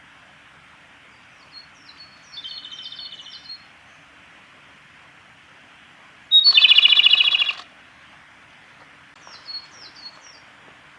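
Male Japanese robin singing: one loud phrase about six seconds in, a short note followed by a rapid rattling trill, with fainter song phrases a few seconds before and after it over a steady background hiss.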